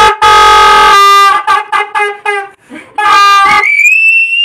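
Plastic party horn blown in honking blasts: one long blast, then a quick run of short toots, and another blast about three seconds in. Near the end a single high whistle rises slightly and holds.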